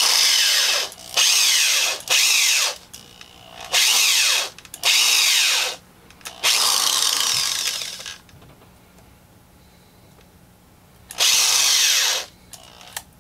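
Drill bit boring out the packed paper-and-foil innards of an old aluminium-can electrolytic capacitor: seven short bursts of harsh grinding and scraping, with a longer pause before the last one.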